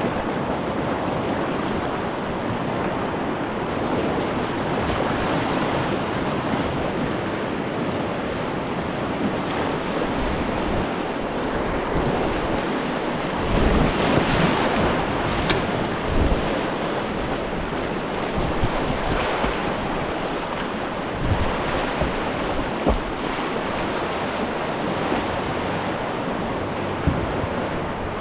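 Whitewater rapids rushing steadily around a kayak, with wind buffeting the microphone and a few louder splashing bursts about halfway through and again later.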